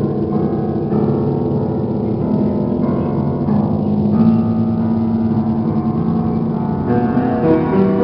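Solo piano music: slow, sustained chords, with a new chord struck every second or few.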